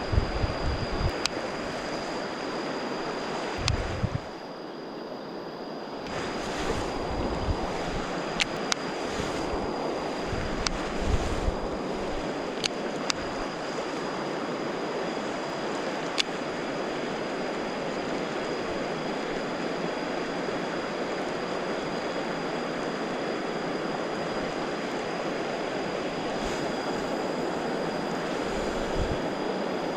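Steady rushing of flowing water, with a thin steady high-pitched tone above it and a few sharp clicks in the first half.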